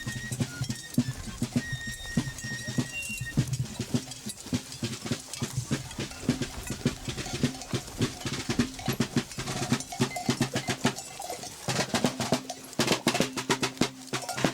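Military drums beating a rapid marching cadence, with a low steady tone sounding underneath. A few short, high whistling bird calls come in the first three seconds.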